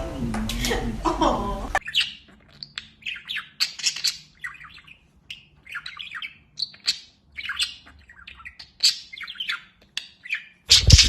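Pet bird squawking and chirping in a long string of short, separate calls, with a louder harsh burst near the end. For the first two seconds, music from the previous clip plays before cutting off.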